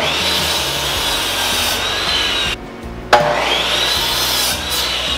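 Sliding compound miter saw cutting through a 4x4 pine post. The motor is started twice and each run lasts about two and a half seconds, with a high blade whine over the noise of the cut.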